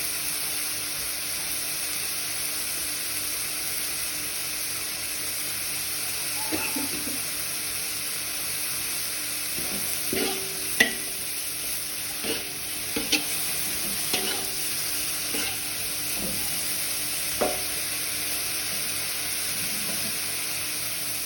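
Stir-fried papaya flowers sizzling in a pan with a steady hiss, with several sharp clinks of a utensil against the pan in the middle.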